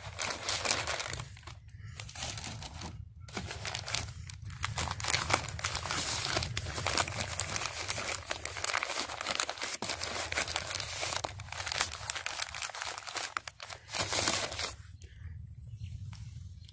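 Newspaper packing paper crumpling, crinkling and tearing as newspaper-wrapped parts are unwrapped by hand. The rustling is dense, breaks off briefly a few times, and dies down near the end.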